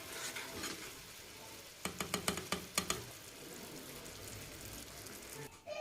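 Chili-tomato sauce for koshari simmering and sizzling faintly in a pan, with a quick run of sharp clicks about two seconds in.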